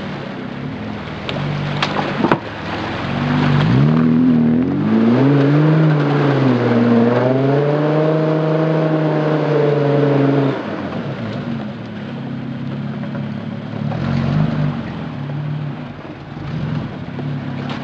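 Suzuki Vitara 4x4's engine revving hard through a muddy stream: the pitch climbs and sags for several seconds, then drops back to a low idle about ten seconds in. A couple of sharp knocks come about two seconds in.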